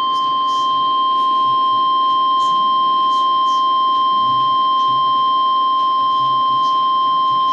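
Weatheradio Canada warning alarm tone: a single steady, loud high tone near 1050 Hz, sounding from a weather radio receiver's speaker. It is the alert that signals a weather warning broadcast, here a severe thunderstorm warning, is about to follow.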